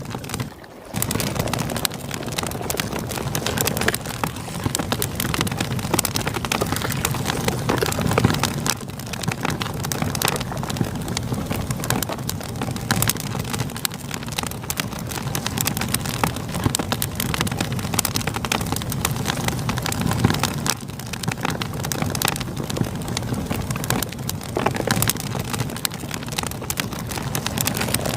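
Campfire crackling with dense, continuous pops over the steady rush of a flowing river. The sound drops out briefly just under a second in.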